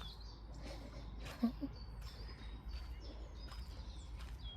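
Small birds chirping: short, high whistled chirps repeating every half second or so over a low steady rumble, with one soft thump about one and a half seconds in.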